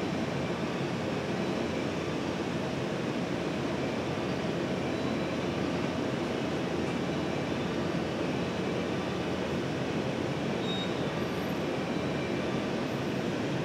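Electric train approaching slowly along the track, a steady, even running sound with no sudden events.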